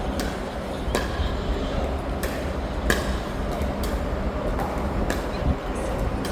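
Pickleball paddles popping against a plastic ball in a slow dink rally, roughly one sharp hit a second, over a steady low background rumble.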